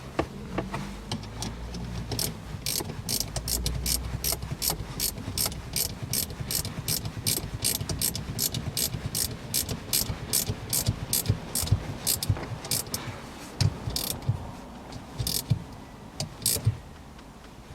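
Ratchet wrench tightening a nut on a car's gear-shift lever support: a long run of even ratchet clicks for about ten seconds, then a few slower strokes near the end.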